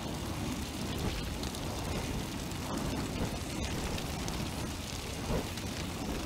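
A large bonfire burning: a steady low rumble of flames with faint scattered crackles.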